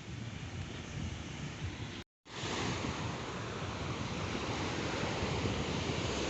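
Sea surf washing on the shore, mixed with wind rumbling on the microphone. About two seconds in the sound cuts out for a moment, then comes back louder and slowly builds.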